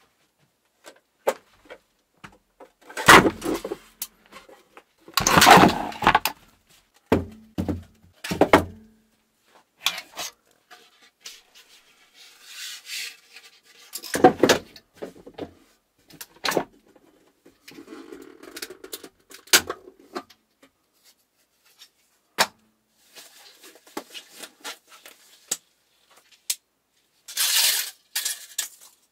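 Hard plastic 3D-printed mold pieces being handled, set down and fitted together: scattered knocks, clacks and rustles, loudest about 3 and 6 seconds in.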